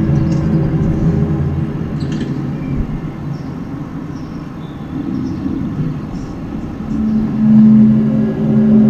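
A loud, low droning hum outdoors, holding a steady pitch and swelling louder about seven seconds in. It is one of the unexplained 'strange sounds' reported around the world, which the person hearing it cannot identify.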